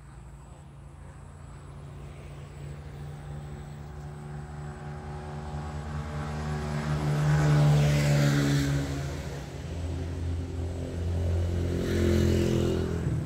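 Engine of a passing vehicle, growing louder to a peak about eight seconds in, easing off, then swelling again near the end.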